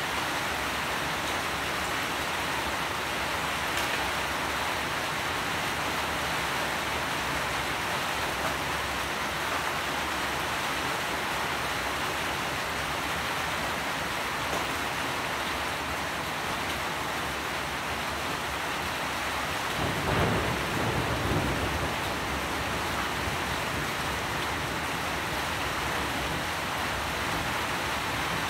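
Steady heavy rainfall, an even hiss of rain, with a brief low rumble of thunder about twenty seconds in.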